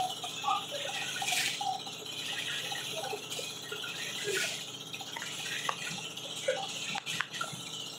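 Shovels and hoes digging and scraping into packed earth, a steady rasping hiss with a few louder scrapes and sharp knocks against stone or metal.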